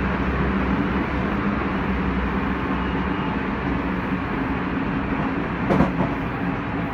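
Odakyu 2000 series electric train heard from inside the car while running at a steady speed: steady wheel-on-rail rolling noise with a low, even motor hum. A brief louder clatter comes about six seconds in.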